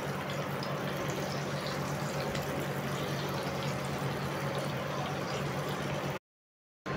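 Breadcrumb-coated potato cubes deep-frying in hot oil: a steady sizzle and bubbling, broken by a silent gap of about half a second near the end.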